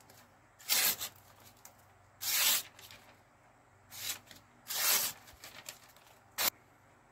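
A large Bowie knife blade slicing through a sheet of glossy paper in five quick swishing cuts about a second or so apart. The last cut is short and sharp. It is a paper-slicing test of the blade's factory-sharpened edge.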